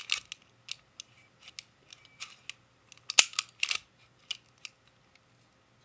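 Metal clicks and clacks of a full-metal gas blowback airsoft pistol, an HFC M190 copy of the Beretta M9, being worked by hand. There are scattered single clicks and a louder cluster of clacks about three seconds in.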